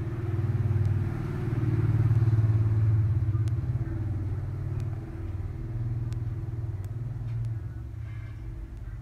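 A steady low rumble, swelling and easing in level, with a few faint clicks.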